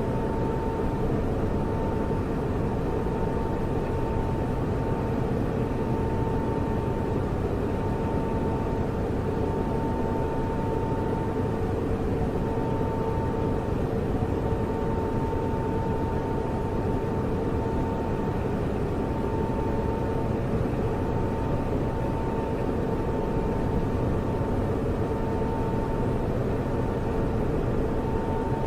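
Computer server running: a steady whir of cooling fans with a hum and a higher whine that wavers slightly in strength.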